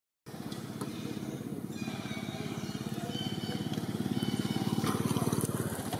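A small engine running with a fast, even low pulse, growing louder until about five seconds in and then easing off.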